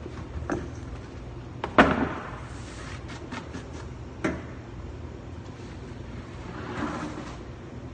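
Scattered knocks and clatter of hands and tools working at a commercial bakery deck oven, with one sharp, loud knock about two seconds in and another a couple of seconds later, over a steady low hum.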